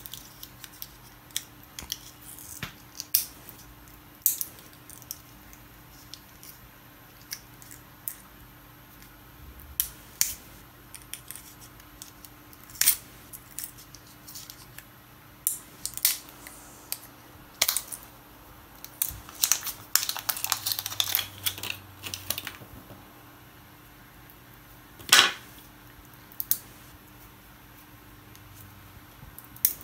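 Irregular small clicks, taps and scrapes of battery cells and their metal tabs being handled. A busier stretch of rattling comes about two-thirds of the way through, then one sharp knock a few seconds later.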